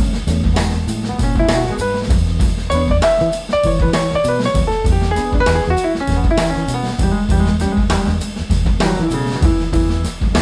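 Background music: upbeat jazzy tune with drum kit, guitar and bass over a steady beat.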